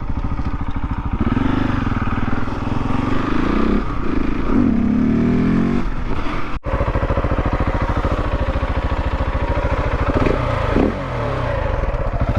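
Husqvarna 701's big single-cylinder thumper engine running through an Akrapovic slip-on exhaust, its note rising and falling as it is revved in the first half, then holding steady.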